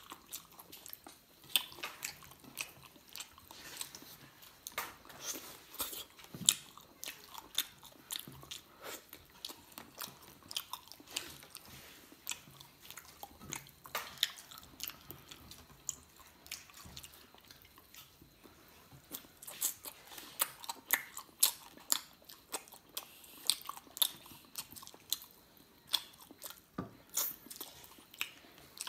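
A person chewing and biting into cooked frog, with many sharp, irregular crunches. There is a quieter lull a little past the middle.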